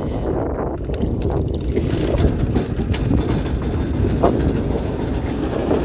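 Strong storm wind buffeting the microphone: a steady low rumble with no distinct strokes.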